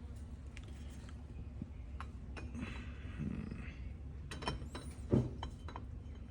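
Small metal starter parts clicking and clinking as they are handled and fitted together during reassembly of a Delco-Remy starter, with a louder knock about five seconds in.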